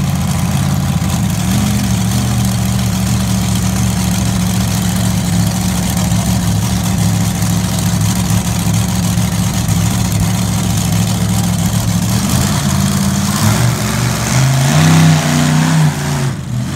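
Raminator monster truck's supercharged V8 running at a loud, steady idle, with a brief rev about three-quarters of the way through.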